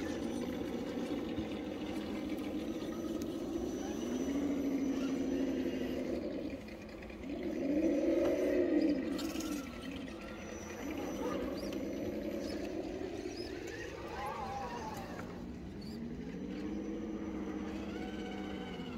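RC crawler's electric motor and gearbox whining under throttle, the pitch rising and falling in smooth swells several times as it crawls, loudest about halfway through.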